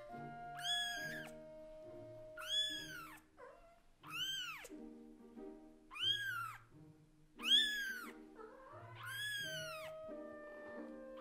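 Very young Scottish Fold × British Shorthair kitten meowing loudly six times, each call rising and then falling in pitch: it is calling for the parent cat that has left its side. Soft background music plays underneath.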